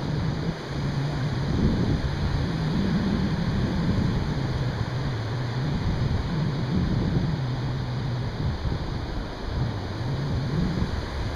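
Ocean surf washing in steadily, with wind buffeting the microphone and a low wavering hum underneath that steps up and down in pitch.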